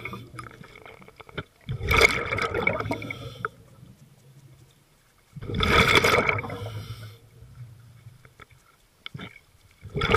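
Scuba diver's breathing through a regulator underwater. Loud rushes of exhaled bubbles come twice, about four seconds apart, with another starting at the end, and it is much quieter in between.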